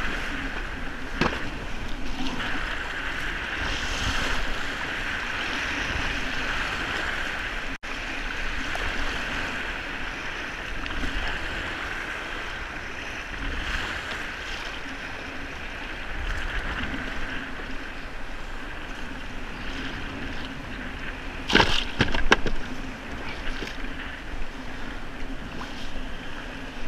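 Choppy bay water sloshing and slapping against a plastic sit-on-top kayak as it is paddled through the chop, with a couple of louder splashes about three quarters of the way through.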